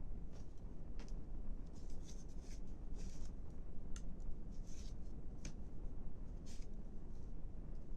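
Short, scattered scraping and scratching strokes of a hand tool working thin wooden sticks, over a steady low hum.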